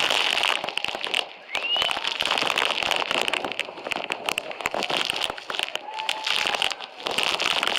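Waterfall spray and water drops pelting the camera, a dense crackling patter over the steady rush of falling water.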